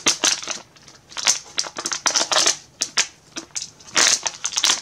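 A foil blind-bag packet crinkling and crackling as hands tear it open, in irregular sharp crackles, with a denser burst of crinkling about four seconds in.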